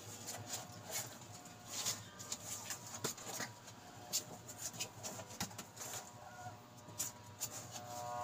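Young Labrador puppies scrabbling and shuffling on cardboard, many small scrapes and clicks, with a few faint short calls at times, the clearest near the end.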